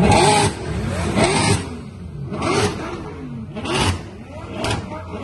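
Mercedes-AMG SLS Black Series 6.2-litre V8 with long-tube headers, blipped in short revs about once a second. Each rev rises and falls in pitch and carries a raspy exhaust blare, and the first is the loudest.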